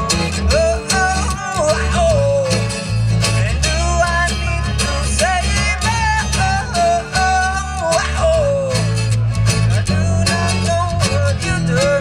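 Live band playing acoustic guitar, electric guitar and bass guitar together, with a gliding lead melody over a steady bass line.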